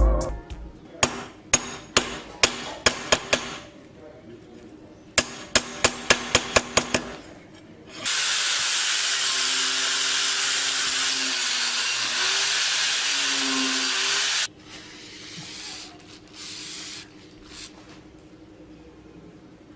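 Workshop tool work: two quick runs of sharp knocks, about eight blows each, then a power tool running steadily for about six seconds before cutting off, followed by a few fainter scrapes.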